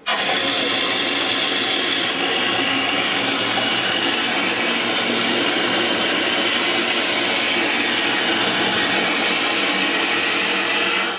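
Toilet flushing: a steady, loud rush of water into the bowl that cuts off suddenly.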